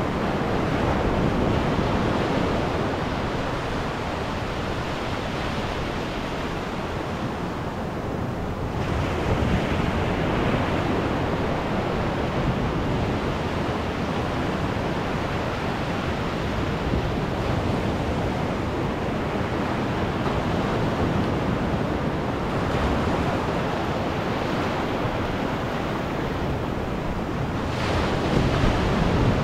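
Ocean surf breaking close by, its foamy wash running up and back over wet sand in a continuous rush. It swells louder about nine seconds in and again near the end as bigger waves come in.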